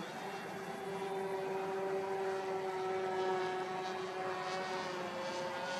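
RC quadplane's propeller droning in forward flight overhead. It makes a steady pitched hum that drifts slowly lower in pitch.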